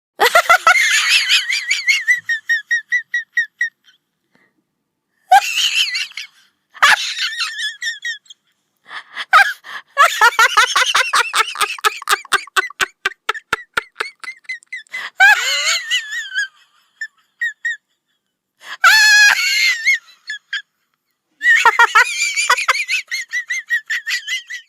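High-pitched, squeaky giggling laughter as a sound effect, in about seven fits separated by short pauses. Each fit is a rapid string of 'hee-hee' pulses that trails off, and the longest runs about five seconds near the middle.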